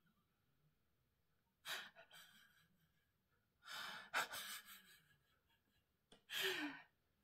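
A woman's quiet breaths and sighs, three short exhales spaced a couple of seconds apart, the last one voiced and falling in pitch, with a soft click about four seconds in.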